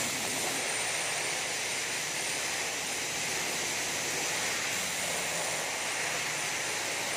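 Air-powered paint mixer running steadily with its paddle stirring paint in a can: a continuous, even hiss of air through the motor.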